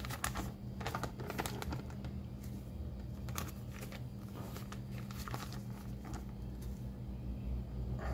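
Paper rustling and crinkling as a folded glossy brochure is handled and unfolded, in scattered short crisp rustles. A low steady hum runs underneath.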